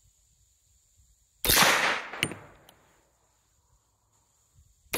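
A .30 carbine rifle firing a single shot about a second and a half in, the report echoing away over about a second, followed by a light metallic clink. The next shot goes off right at the end.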